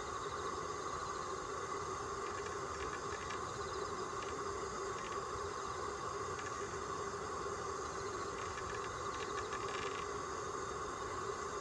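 A steady mechanical hum over background noise, like a distant engine running, with faint soft clicks now and then.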